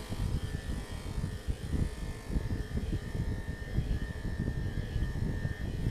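Electric dog grooming clippers running with a steady hum while being worked through a puppy's coat.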